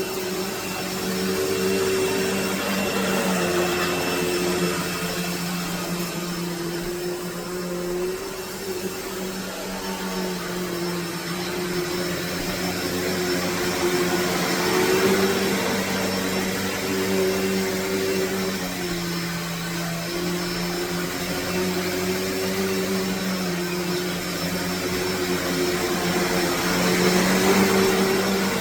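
Hoover Deluxe Elite Rewind U5509-900 upright vacuum cleaner running steadily, a motor hum over airflow hiss that wavers slightly in pitch.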